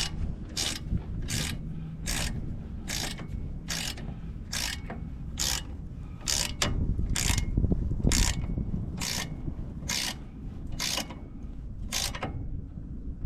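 Hand ratchet wrench turning the screw of a ball joint press to force a track bar ball joint in, clicking on each swing at an even pace a bit more than once a second, the clicks stopping near the end.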